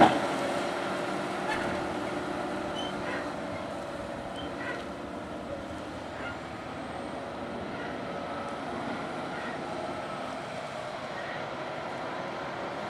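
Large tracked tractor's diesel engine pulling a loaded ejector scraper, steady and fading over the first few seconds as it moves away. A short sharp click sounds right at the start.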